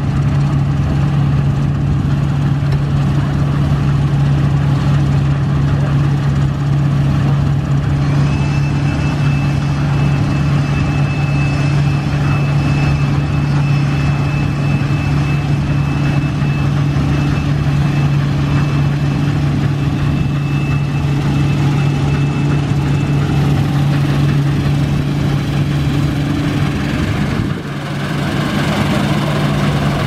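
New Holland combine harvester running steadily as it harvests, a loud deep engine hum with a thin high whine over it for much of the time. The sound dips and changes near the end as the machine swings round close by.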